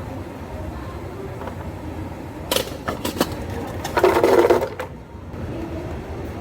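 Cafe counter work sounds over a steady low hum: a few sharp clicks and knocks, then a short loud rushing burst about four seconds in.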